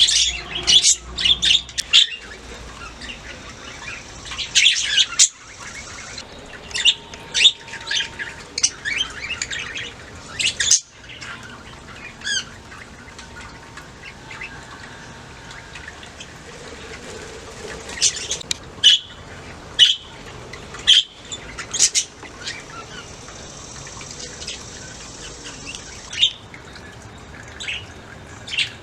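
Budgerigars chirping and chattering in short, sharp calls, busiest in the first ten seconds and sparser after.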